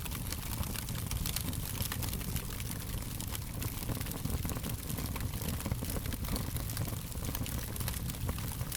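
Wood fire burning steadily with frequent small, sharp crackles and pops over a low rumble of the flames.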